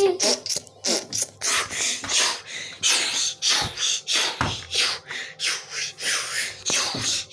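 A person's voice making quick, irregular breathy mouth sounds, several per second, like beatboxing.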